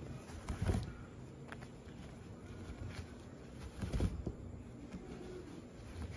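Soft rustling and light bumps of t-shirt yarn strips being pulled and pushed through a rug-weaving frame by hand, the strongest about a second in and again about four seconds in.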